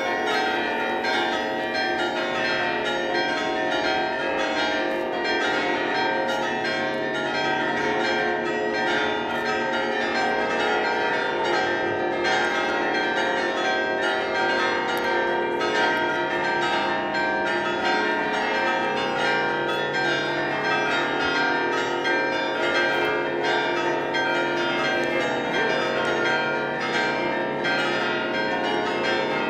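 Church tower bells ringing a festive peal: many bells sounding together in a steady, dense wash of overlapping strikes and ringing tones, with no pause.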